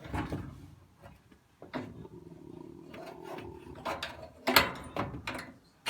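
Sheet-metal bottom front panel of an electric dryer being handled and fitted: metal scraping and rattling, then a sharp knock about four and a half seconds in as the panel's clips go into their holes.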